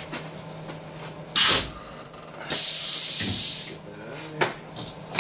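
Pneumatic power drawbar on a Tormach PCNC 1100 mill releasing the tool holder from the spindle: a short blast of air hiss about a second in, then a longer hiss of about a second. A short clunk follows near the end.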